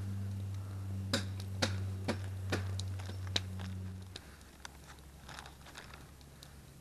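Handling noises of raw chicken in plastic wrapping and a jar of goose fat: five or six sharp clicks and taps over a low steady hum that cuts off about four seconds in.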